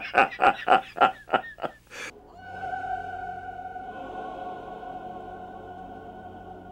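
A man laughing heartily in a quick run of 'ha's for about two seconds. Then singing: one long sustained note, held and slowly fading.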